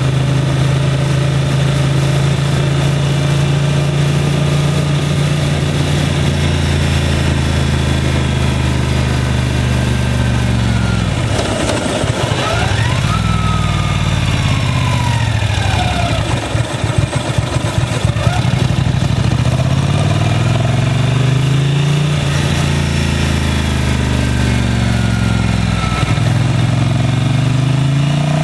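Motorcycle engine running while riding, with wind rush. It holds a steady note at first, drops off and falters about eleven seconds in as the bike slows, then from about nineteen seconds rises in pitch again and again as it accelerates up through the gears.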